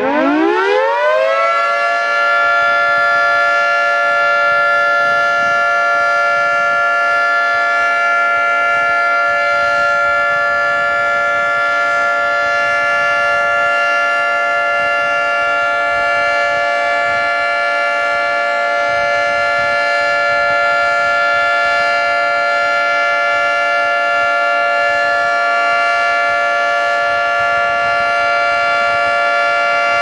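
Federal Signal 3T22 three-tone outdoor warning siren finishing its wind-up, its pitch rising over the first second or two, then holding a loud, steady chord: the alert signal.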